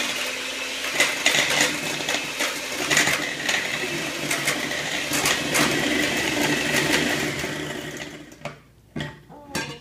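Electric hand mixer running steadily, its beaters whipping melted butter in a glass bowl for buttercream frosting, with scattered clicks of the beaters against the bowl. The motor winds down near the end, followed by a few knocks.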